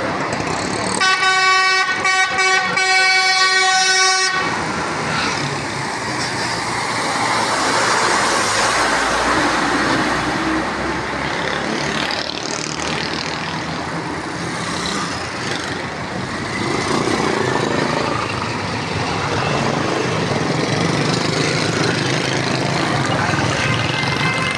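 Street traffic noise, with a vehicle horn sounding one steady blast of about three seconds starting about a second in; passing vehicles fill the rest.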